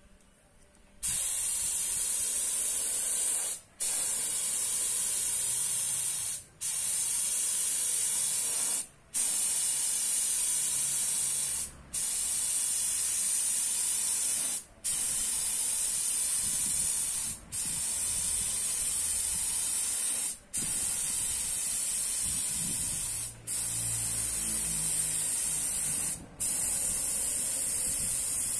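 Compressed-air spray gun with a gravity-feed cup, hissing as it sprays finish. It starts about a second in and runs in passes of about three seconds, broken by brief gaps as the trigger is released.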